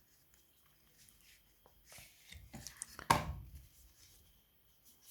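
Cardboard and paper packaging of a phone box being handled: light rustling and small clicks, with one sharper knock about three seconds in.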